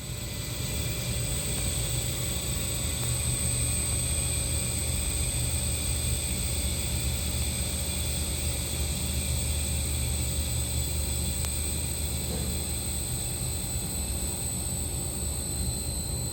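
Air-conditioner outdoor units running steadily: a low hum with a constant high whine, coming up to full level at the start.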